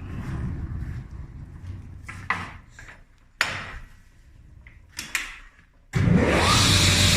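A low rumble and a few sharp knocks and clicks from handling the Filato 3200 Maxi sliding panel saw. About six seconds in, its motor switches on suddenly and spins up with a brief rising whine into a steady running hum.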